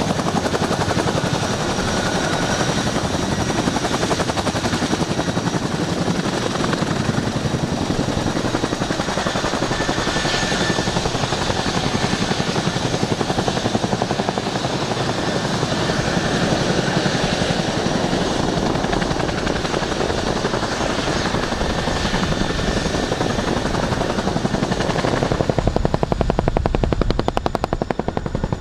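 Boeing CH-47 Chinook's tandem rotors turning with fast, even blade chop over the steady high whine of its twin Lycoming T55 turboshaft engines. About 25 seconds in the chop grows louder and deeper while the high whine fades.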